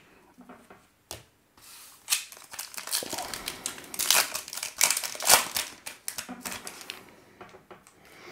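A trading-card pack wrapper being torn open and crinkled, with the cards inside being handled. The crackly rustle starts about two seconds in, is loudest in the middle and dies away near the end.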